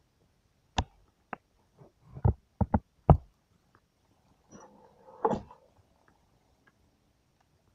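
Handling noise as a shot-up target board is picked up and moved: several sharp knocks and clicks in the first three seconds, the loudest about three seconds in, then a brief scraping rustle about five seconds in.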